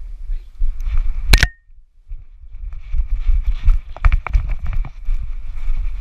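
Dog sprinting with a GoPro strapped to its back: quick uneven thuds of its paws and the camera rattling against the harness. A single sharp click and a brief drop-out come about a second and a half in.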